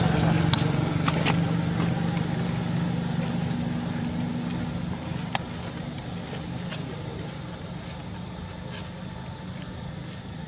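A motor vehicle's engine running with a low, steady hum that slowly fades away, with a few faint clicks along the way.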